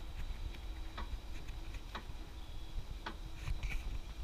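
Railroad crossing signal clicking about once a second while its lights flash and the gate arms rise, with wind rumbling on the microphone.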